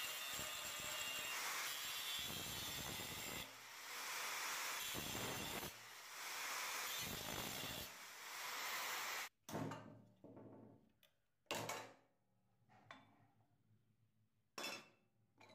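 Angle grinder with an abrasive disc grinding rust off a steel hacksaw frame, running steadily under load with brief dips every couple of seconds as the disc eases off the metal. It stops abruptly about nine seconds in. After that come a few sharp knocks of metal parts being handled.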